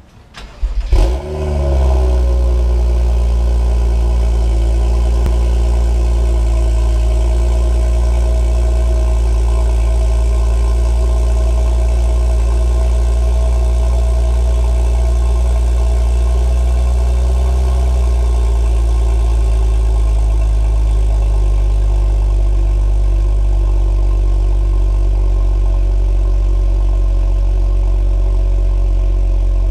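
2013 BMW 335i's N55 turbocharged inline-six cold-starting through a catless CTS Turbo downpipe and M Performance exhaust with its flap open. A brief crank and the engine catches with a rev flare about a second in, then settles into a very deep, resonant fast cold idle. About 18 seconds in the idle speed drops to a lower, steady idle.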